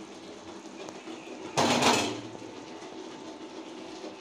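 A large aluminium cooking pot shifted on the gas stove's grate, giving one short, loud metallic scrape and clatter about one and a half seconds in.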